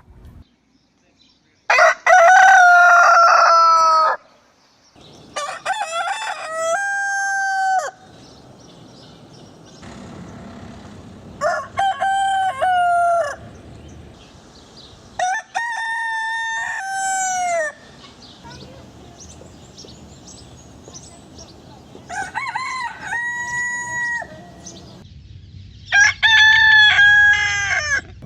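Rooster crowing cock-a-doodle-doo six times, each crow two to three seconds long and ending in a falling drawn-out note, with a few seconds' pause between crows.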